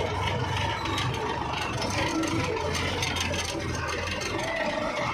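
Tractor diesel engine running steadily with a constant low hum as the tractor is driven slowly, heard from the driver's seat.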